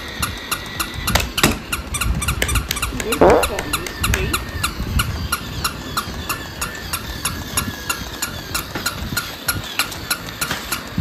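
Battery-operated walking toy dog running: its small motor and gears whir with a quick, regular clicking. There is a brief squeak about three seconds in.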